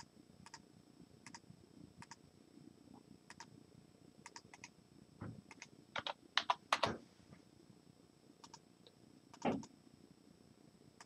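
Faint clicks of a computer keyboard and mouse: scattered single clicks, with a quick run of keystrokes about six to seven seconds in and another click near the end.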